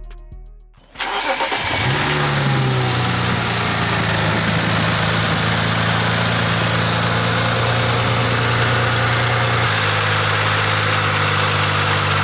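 BMW 335i's turbocharged inline-six starting about a second in, flaring briefly, then settling into a steady idle that drops slightly in pitch near the end. It is the first start after fitting a new aftermarket charge pipe.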